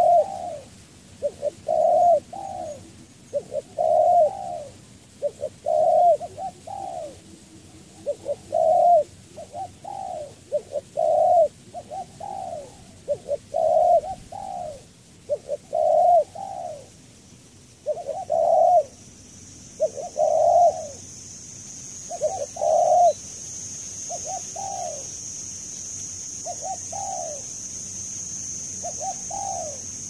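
Spotted dove cooing, a repeated low phrase of a few coos every couple of seconds. From a little past halfway a steady high-pitched hiss comes in and grows louder toward the end.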